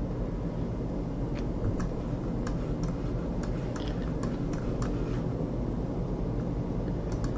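Irregular light clicks from a computer mouse as the view is zoomed in, about a dozen spread unevenly, over a steady low electrical hum.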